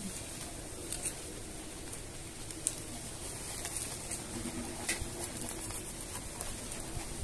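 Potting soil being scooped with a small plastic scoop and trickled into a pot around a succulent, with a few sharp clicks and taps of the scoop.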